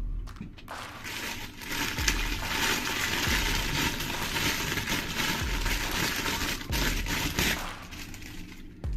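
Packaging being handled and crinkled, a dense crackling that swells about a second and a half in and dies away near the end.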